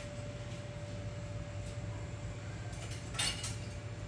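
Steady low hum of kitchen room background, then a brief clatter of a few sharp knocks about three seconds in, as kitchen things are handled while the pickling brine is readied.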